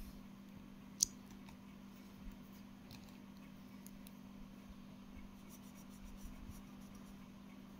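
A sharp click about a second in, then faint scratching of a felt-tip marker on paper near the end, over a steady low hum.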